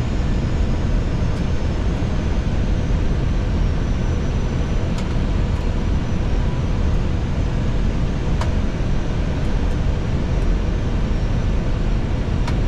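Steady rushing noise inside an Airbus A320 cockpit in flight, the airflow and engine noise of the flight deck, with a few faint clicks.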